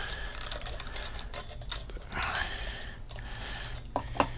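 Scattered light metallic clicks and taps from engine parts being handled, with two sharper clicks near the end as a camshaft is set into the cylinder head.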